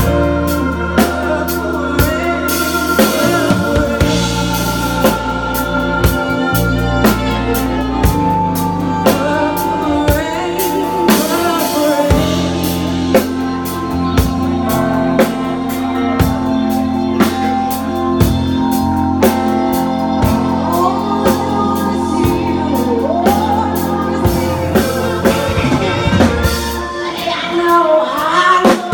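Live band playing a slow rock ballad: a drum kit keeps a slow, steady beat under bass and sustained chords, and a voice sings over it.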